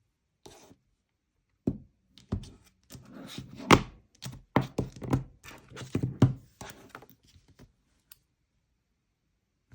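A run of irregular knocks and thuds, a dozen or so over about seven seconds, the loudest near the middle.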